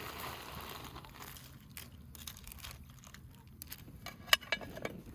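Rustling and crinkling of things being handled, with scattered small clicks and one sharp knock about four seconds in.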